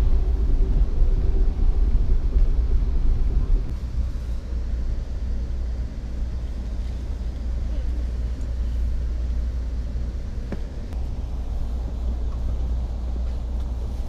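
Steady low rumble of a moving passenger train. It is louder for the first few seconds, then drops abruptly to a lower, even rumble about four seconds in.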